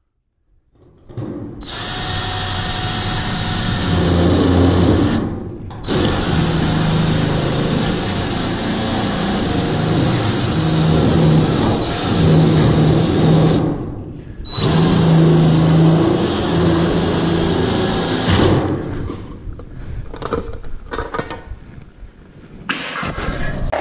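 DeWalt cordless right-angle drill running into a galvanized sheet-metal duct in three long runs, its motor whine rising and dipping as the bit loads up. After that come shorter, uneven bursts.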